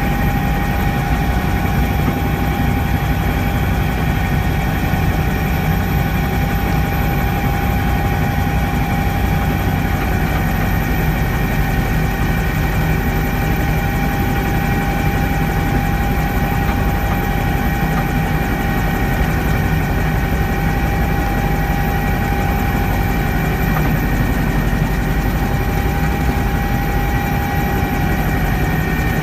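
Twin-engine Bell 230 helicopter in flight: its rotor and turboshaft engines run at a loud, steady level, a constant low rumble under a steady high whine.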